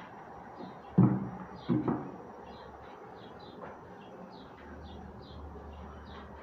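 Two dull thumps about a second apart, over faint, short, high chirps from a bird that repeat throughout.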